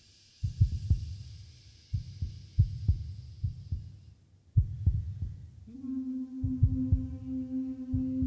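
Deep, heartbeat-like thuds, often in pairs, pulsing every second or two as part of a contemporary concert piece. About two-thirds of the way in, a steady held note joins the pulse.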